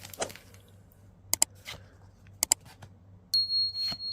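Sharp clicks and light rustling of trading cards being handled. A steady, high-pitched tone starts abruptly about three seconds in and holds.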